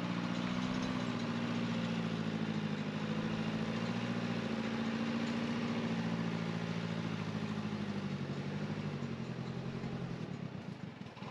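Engine of a heavy earthmoving machine running steadily, its pitch shifting slightly, and growing fainter near the end.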